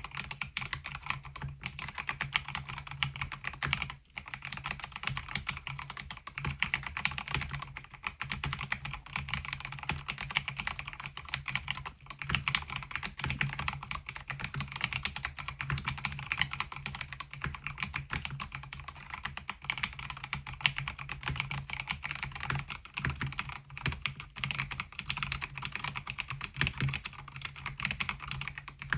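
Continuous fast typing on a MelGeek Mojo68 mechanical keyboard fitted with MOA-profile keycaps: a dense, even stream of keystrokes with a brief pause about four seconds in, over a low steady hum.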